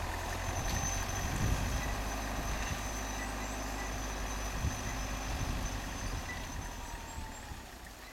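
Hyundai Galloper 4x4's engine running at low speed as it crawls through deep snow, a steady low rumble with a thin high whine over it. The sound dies down near the end.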